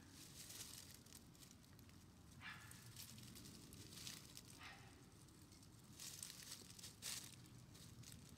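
Near silence with about six faint, short rustles and scuffs, spread several seconds apart, from a Shiba Inu puppy and its mother moving about.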